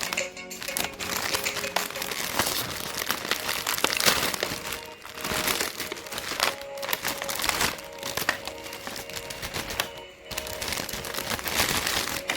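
Candy and chocolate bar wrappers crinkling and tearing open: a dense crackle that pauses briefly about five and ten seconds in, with soft background music underneath.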